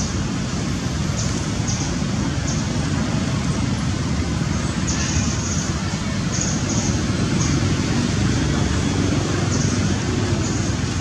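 Steady low rumbling background noise, with short faint high chirps now and then.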